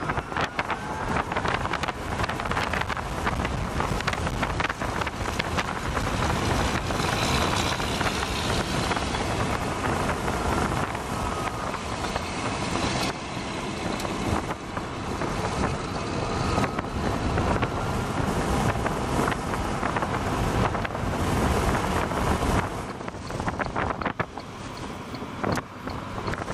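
Wind buffeting the microphone in a Tesla Roadster driving with the roof off, mixed with tyre and road noise at speed. It eases somewhat near the end.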